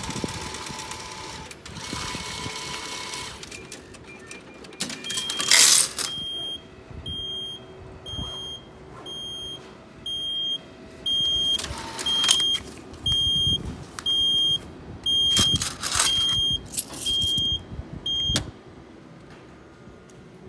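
Japanese railway ticket vending machine issuing a ticket and paying out change: a mechanical whirr, coins clattering into the tray, then a short high electronic beep repeating about every three-quarters of a second, the reminder to take the change and ticket, which stops about 18 seconds in. Further clatters come as the change and notes are taken from the trays.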